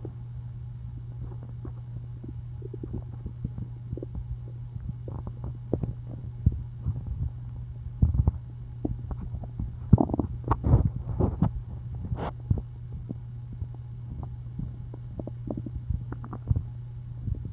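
Hungry, empty stomach growling: irregular gurgles and rumbles over a steady low hum, with a run of louder gurgles about ten seconds in.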